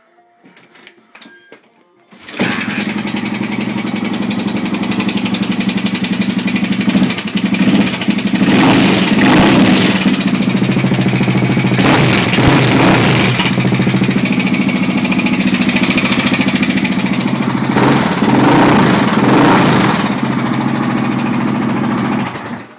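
Honda XR600R single-cylinder four-stroke engine running, coming in about two seconds in, revved up a few times and cutting off near the end. Its top-end noise is one the owner thinks is the timing chain.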